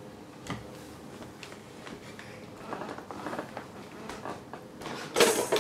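Toy gumball machine, quiet at first apart from small clicks and handling sounds. About five seconds in it is worked and suddenly bursts loudly into sound, starting its electronic music.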